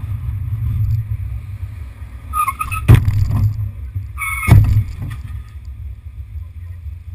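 Steady low rumble of road and wind noise on a vehicle-mounted camera, with two sharp knocks about a second and a half apart, each just after a brief high tone.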